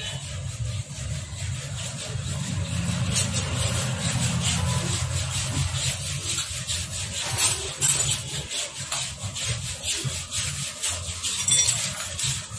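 Hand tools scraping and rubbing on a motorcycle engine's metal casing during assembly, with many irregular short clicks and scratches.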